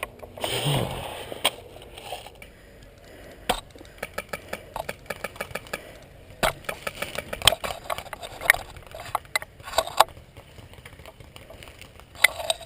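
Airsoft guns firing, sharp shots coming singly and in quick even strings of several a second, with a short rustling burst under a second in.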